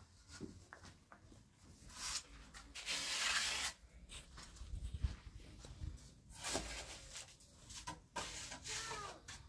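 Irregular rubbing and scraping noises from hand work, loudest for under a second near the middle, with a short wavering animal cry near the end.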